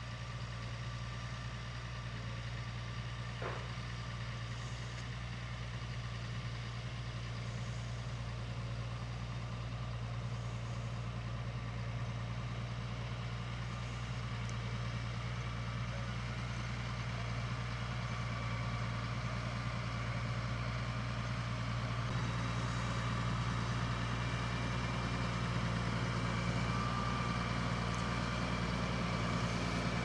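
Massey Ferguson tractor's diesel engine running steadily at low revs, growing a little louder in the second half.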